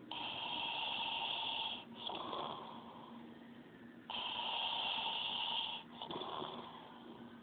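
A man snoring in his sleep: two loud, rasping snores about four seconds apart, each lasting nearly two seconds, with quieter breathing between them.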